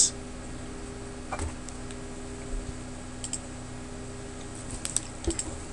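A few scattered computer mouse clicks over a faint steady hum.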